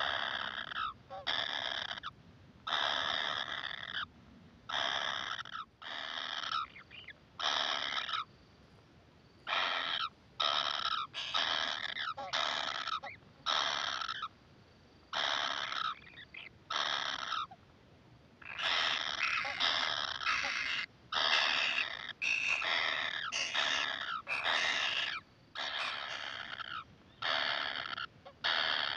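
Kingfisher nestlings begging with repeated harsh calls. The calls come about once a second at first, then faster and overlapping in the second half.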